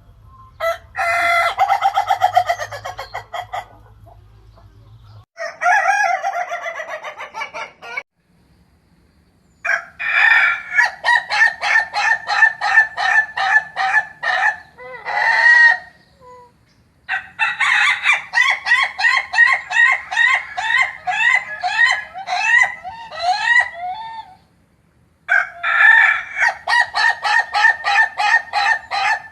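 Roosters crowing: about six separate loud crows with short gaps between them. The longest ones run on for several seconds as quick repeated notes, several a second.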